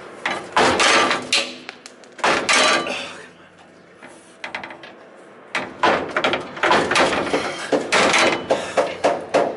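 Metal-on-metal clanks, knocks and scrapes in several clusters, from tools and parts being worked while bolts are loosened on a forklift battery mount. There is a quieter stretch in the middle, then a long busy run of clanking near the end.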